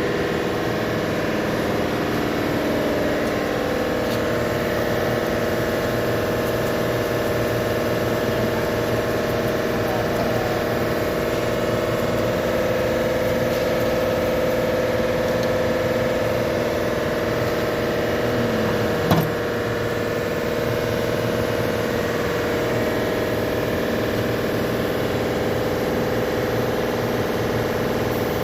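Car engine idling steadily, with one sharp click about two-thirds of the way through.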